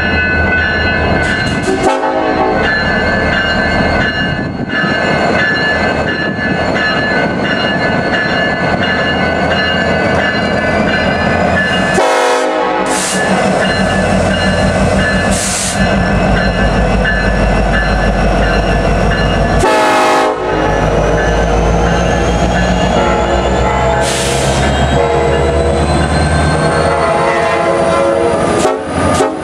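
BNSF SD70ACe diesel-electric locomotive at the head of a coal train, going by close at hand and sounding its multi-tone horn in a long blast. From about halfway on, the deep running of its engine and the rumble of the train on the rails take over.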